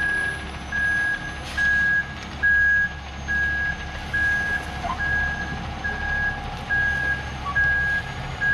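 Truck backup alarm beeping steadily at one pitch, about one beep every three-quarters of a second, over the low rumble of the truck's running engine.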